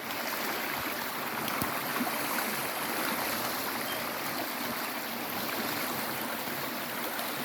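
Flowing stream water rushing steadily, the sound of the current.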